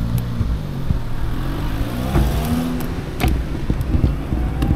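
A car engine running and accelerating close by, its pitch rising about two seconds in, with a couple of light clicks.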